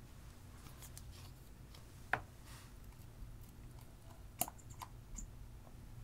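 Small plastic clicks and taps of makeup tubes and caps being handled over a faint steady low hum. There are two sharp clicks, about two seconds in and again about four and a half seconds in, with lighter ticks in between, as a liquid eyeliner pen is taken up and opened.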